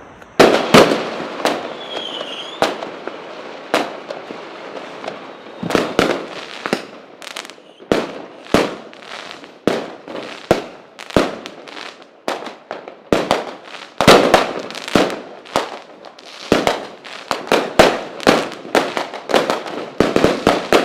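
Aerial fireworks bursting overhead: dozens of sharp bangs in quick, uneven succession, each trailing off in a crackle, with a short whistle about two seconds in.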